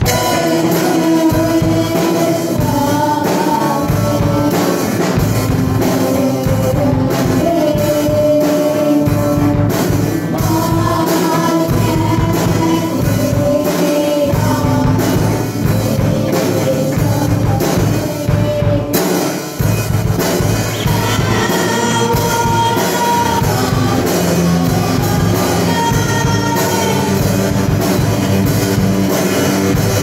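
Rock song starting abruptly: a sung melody over a full band with a steady drum beat.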